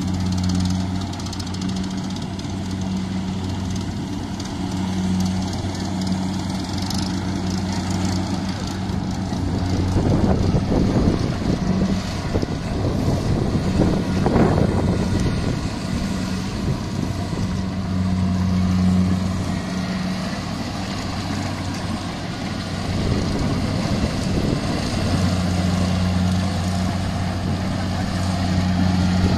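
Diesel engines of farm harvesting machinery (a combine harvester and a tractor-built paddy carrying machine) running steadily: a low, even engine drone, with a louder rough rushing stretch about ten to fifteen seconds in.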